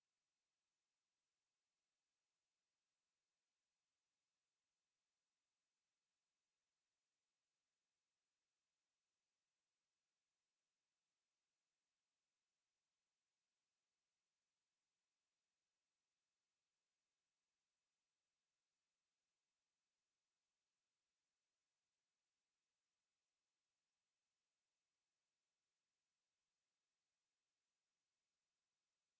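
A steady, high-pitched pure sine-wave test tone at 9182 Hz, held unbroken at constant level, of the kind played through a speaker to test it or to shake out water and dust.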